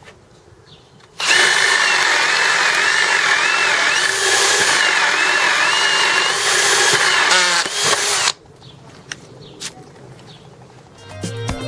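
JCB 18 V brushless cordless power tool running for about seven seconds with a steady motor whine that wavers slightly in pitch, then stopping. A few light clicks follow.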